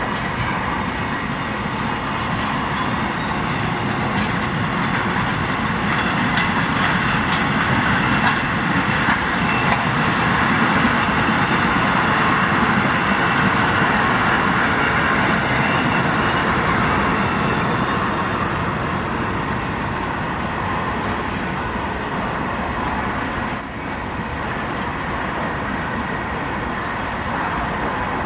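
Indian Railways train running on the track: a steady, dense noise of wheels on rails that swells a little in the middle, with a few short high squeaks about twenty seconds in.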